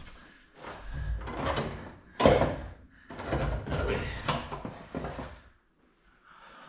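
Scraping and clunking as the old horn is worked loose by hand from behind a car's front bumper, with a sharp knock about two seconds in.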